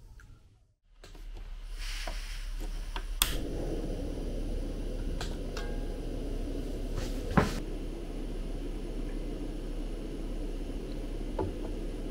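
Portable butane cartridge stove's burner running with a steady low rushing hiss. A sharp click about three seconds in and a louder knock about seven seconds in.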